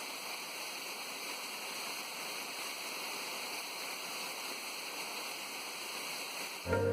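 Steady rush of flowing water from a stream or small waterfall. Background music starts suddenly near the end.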